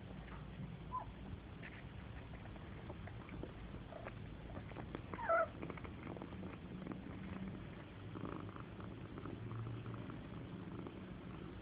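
Cat purring steadily while nursing kittens, with a kitten's short high mew about five seconds in and a couple of fainter squeaks earlier.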